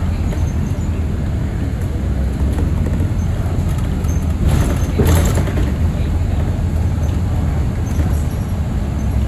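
Transit bus driving, heard from inside the passenger cabin: a steady low rumble of engine and road noise, with a brief louder burst of noise about five seconds in.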